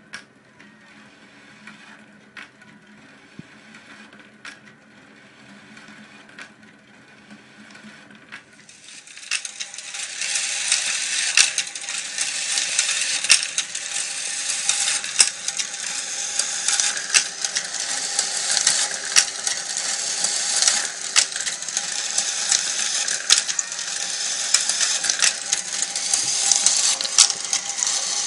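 Glass marbles rolling and clacking along the wire tracks and lift of a homemade marble machine: a constant stream of small clicks and rattles. It is quieter over a low steady hum for the first nine seconds or so, then becomes much louder and denser.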